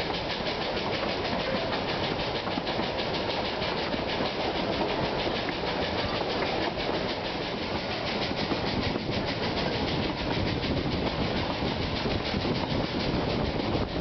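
Narrow-gauge steam train under way, heard from inside one of its open carriages: the Puffing Billy train hauled by NA-class tank locomotive 14A. A steady rumble and rattle of the carriages on the track, with a fast, even clattering beat.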